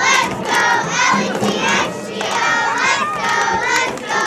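A group of children's voices chanting and shouting together in short, repeated, rhythmic phrases.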